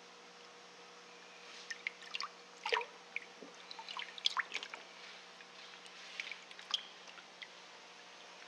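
Water splashing and dripping as hands handle and turn a large koi in a shallow tub. A run of irregular small splashes and drips starts a couple of seconds in and dies away near the end, over a faint steady hum.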